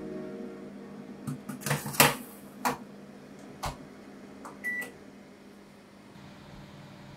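Baking tray slid into a countertop combination microwave oven and its door shut with a sharp clack about two seconds in, followed by a few clicks on the control panel and one short electronic beep near five seconds. A faint steady low hum runs underneath.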